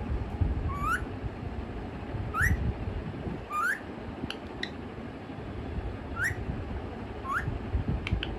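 Pet parrot giving five short whistles that each rise in pitch, spaced one to three seconds apart, with a few faint clicks in between.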